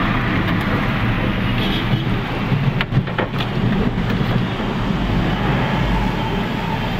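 Diesel vehicle's engine and road noise inside the cab as it rolls slowly into the fuel station, a steady low rumble with a few clicks about three seconds in.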